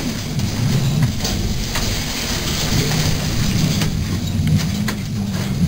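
Pouter pigeon cooing low and repeatedly as it turns in display with its crop puffed up, with scattered sharp clicks.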